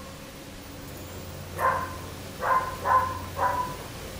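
A small dog barking in the background, four short, high barks in the second half, over a steady low hum.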